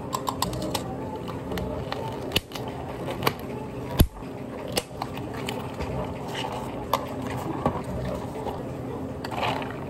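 Plastic clicks and knocks of clear dome lids being pressed onto iced-drink cups and the cups being handled on a counter, with the sharpest knock about four seconds in, over a steady low hum.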